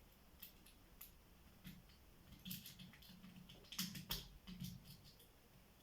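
Faint, irregular metallic clicks and scrapes of a four-way rake being worked in and out of a cross lock's four keyways under turning tension, raking the pins, with a short cluster of clicks in the middle.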